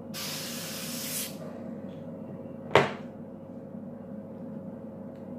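Gravity-feed airbrush spraying white nail paint in a steady hiss that stops about a second in. A single sharp knock follows near the middle and is the loudest sound.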